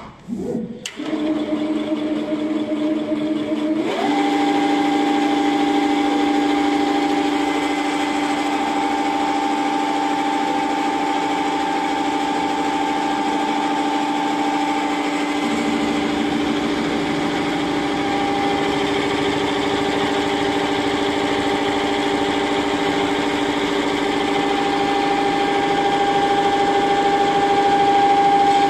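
Richpeace multi-head computerized sewing and perforation embroidery machine running, its needle heads stitching and perforating with a steady mechanical hum. The hum steps up in pitch about four seconds in.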